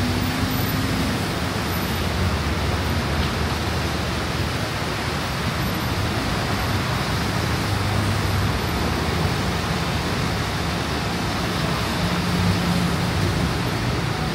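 Heavy rain falling in a steady, loud hiss, with a low hum underneath.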